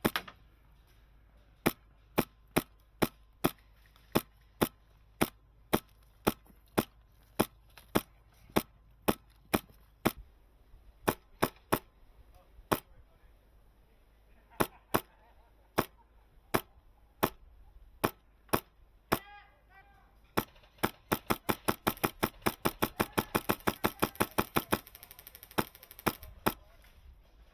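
Airsoft gun firing: a long run of single shots, one or two a second, then a rapid automatic string for about four seconds near the end, followed by a few more single shots.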